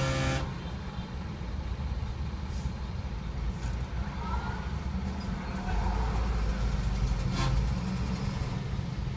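Low, steady rumble of idling vehicle engines heard from inside a car's cabin, growing a little about six seconds in. A held pitched tone cuts off in the first half second.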